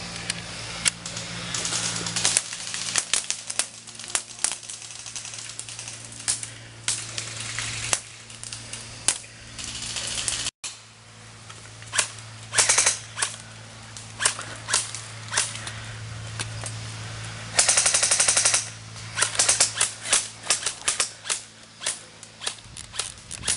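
Airsoft rifles firing in a woodland skirmish: scattered single shots and short strings of shots, with a rapid full-auto burst lasting about a second about three quarters of the way through.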